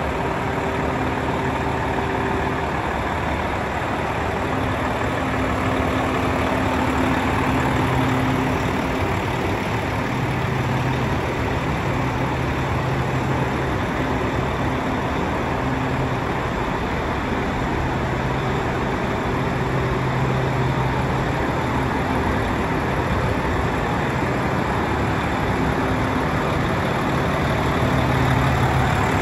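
Volvo D13C 500 hp turbo-diesel straight-six of a Volvo FH tractor unit idling steadily.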